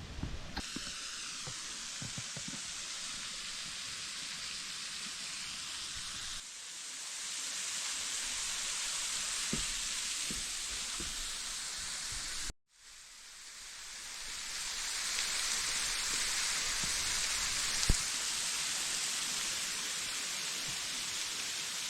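Steady rushing hiss of a waterfall, with an abrupt change in level about six and a half seconds in and a brief dropout just past the middle.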